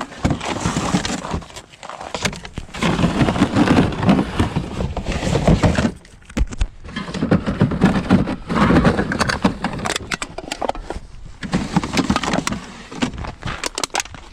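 Empty bottles and cans clattering and clinking as a recycling bin is rummaged through, in several bursts with short pauses between.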